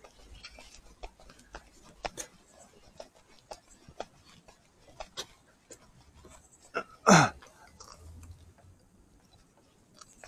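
Small clicks and knocks of objects being handled, with one louder, short squeak-like sound falling steeply in pitch about seven seconds in.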